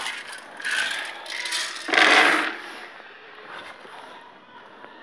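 Dry pig feed rattling and scraping in a bucket as it is scooped and tipped out for the sows, in two bursts: a short one about half a second in and a longer, louder one about two seconds in.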